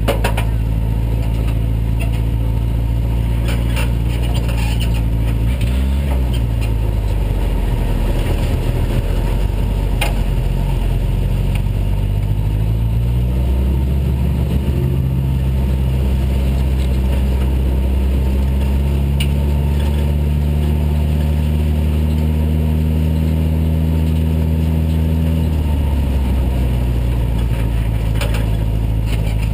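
Race car engine heard from inside the cockpit, running at low speed: a quick rev up and back down about six seconds in, then the pitch rises and holds steady for about twelve seconds before dropping back to a lower, idle-like rumble near the end.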